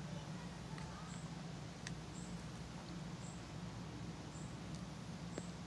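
Soft clicks and lip pops of a tobacco pipe being puffed, a few at a time. Faint high chirps repeat about once a second over a steady low hum.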